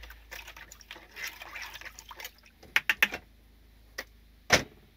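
Salt water sloshing and trickling in a container with fish fillets set to soak, followed by a few sharp clicks or knocks, the loudest near the end.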